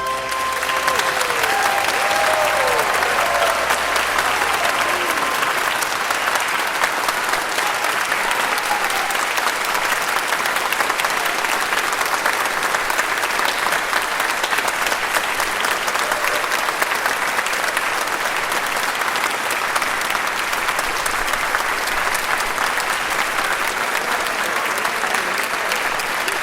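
An audience applauding steadily, starting as the last notes of music die away.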